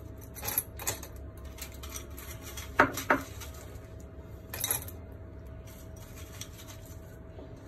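Ice cubes dropped by hand into a glass, clinking against the glass and each other: a few separate clinks, the loudest about three seconds in.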